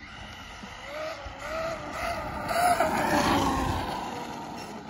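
Traxxas Maxx RC monster truck on 4S brushless power, its motor and drivetrain whining as it drives up and past at speed. The whine wavers in pitch with the throttle and is loudest about three seconds in.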